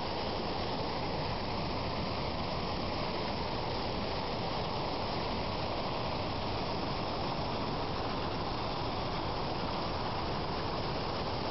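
Floodwater rushing steadily down an overflowing creek.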